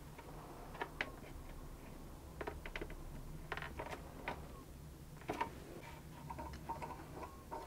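Light clicks and taps of handling as a thin plywood reinforcement patch is pressed onto the inside of a cello rib and a small metal screw clamp is fitted over it. Faint, quick ticking clicks come in the last few seconds as the clamp's screw is turned, over a steady low hum.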